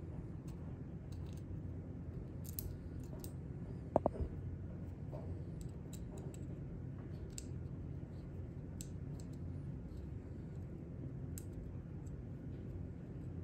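Small scattered clicks and ticks of small metal parts and screws being handled on a paintball marker's trigger frame during disassembly. About four seconds in there is one louder, short ringing metallic clink.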